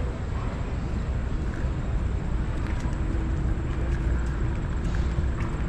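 Steady low rumble of wind and road noise from riding a scooter along a city street, with a faint steady hum joining about halfway through.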